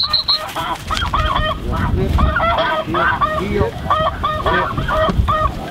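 Snow geese calling: many overlapping high, yelping honks repeating several times a second in a continuous chorus.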